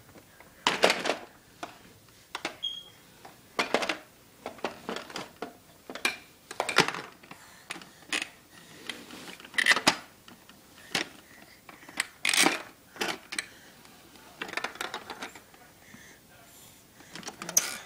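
Hard plastic baby toy clattering and clicking as a baby handles it, in irregular knocks and rattles every second or so.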